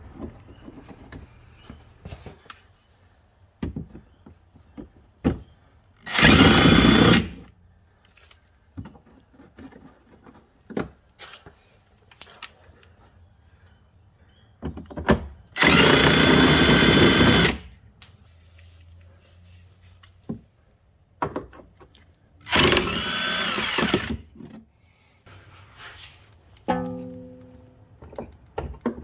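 Cordless drill-driver spinning out the wheel-arch liner bolts in three short runs of about one, two and one and a half seconds, with a whine. Small clicks and knocks of handling the bolts and cover come between the runs.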